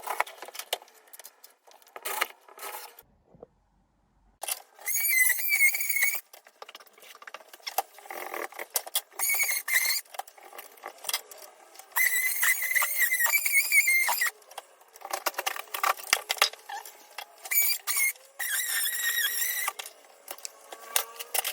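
Cordless drill-driver whining in repeated short bursts, about five, as it drives screws through plaster-support discs into an old lath-and-lime-plaster ceiling. Clicks and scraping fill the gaps between bursts.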